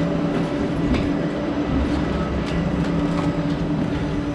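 Steady mechanical hum with a low drone and a few fainter higher tones over a rushing noise, with a few faint steps on gritty concrete stairs.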